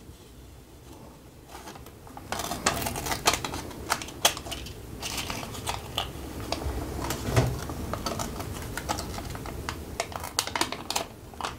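Protective paper film being peeled off clear laser-cut acrylic panels: an irregular crackling, tearing rustle with scattered sharp clicks, starting about two seconds in.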